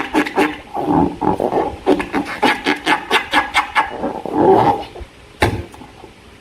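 Slime being squeezed and worked by hand: wet squelching with rapid crackles and pops of trapped air, easing off near the end, with one sharp pop about five and a half seconds in.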